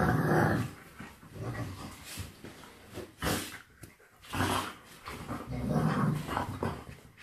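An American Staffordshire Terrier and a wolf play-fighting and growling in several short bouts. The growling is loudest at the start and again about six seconds in.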